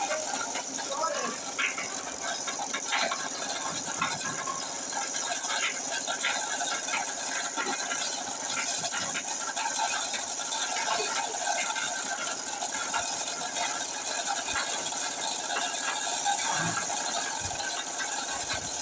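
Irregular mechanical rattling and clicking, dense and uneven, over a steady high hiss.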